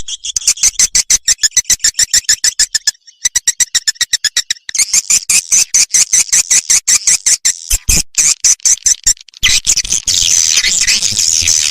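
Recorded swiftlet calls played as a lure sound for a swiftlet house: rapid trains of sharp clicking chirps, about ten a second, with brief breaks, turning into dense buzzy twittering in the last couple of seconds.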